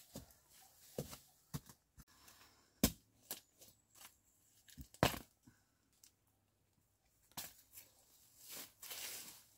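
A hand digging tool striking and prying into soil in irregular knocks, with dry bamboo leaves crackling and rustling as bamboo shoots are dug out. The sharpest strikes come a little under 3 s and about 5 s in, and a longer rustle follows near the end.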